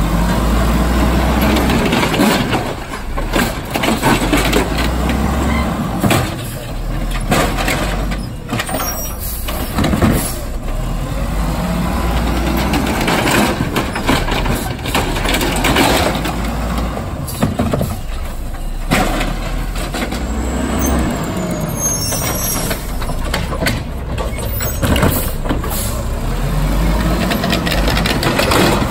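Automated side-loader garbage truck working its lift arm: the diesel engine revving up and down to power the hydraulics as the arm grabs a cart, raises it over the hopper and dumps it, with repeated clanks and bangs of the cart and arm.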